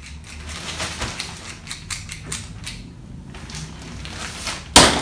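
Small plastic Queen Barb Trolls Happy Meal toy clicking rapidly as its moving mechanism is worked by hand. Near the end there is one sharp, loud knock.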